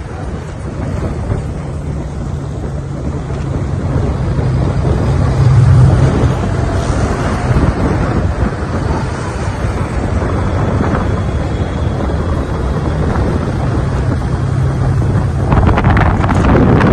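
Honda Gold Wing touring motorcycles running steadily on the move, their engine drone under wind rushing over the microphone, with a louder gust of wind near the end.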